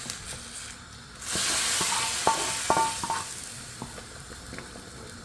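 Hot spiced tempering (baghar) sizzling as it goes into a pot of dal. A burst of hiss starts about a second in and dies down, and a metal spoon clinks against the pot several times.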